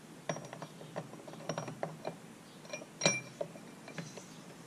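Small steel transmission parts clicking and clinking together as they are fitted by hand onto a gear shaft in a Tuff Torq K66 hydrostatic transmission case. It is an irregular run of light metallic clicks, some with a brief ring, and the sharpest clink comes about three seconds in.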